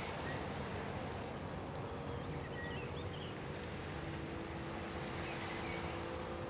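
Distant construction-site machinery running as a low, steady rumble under a wind-like hiss, with a steadier engine hum joining about four seconds in. A few faint bird chirps.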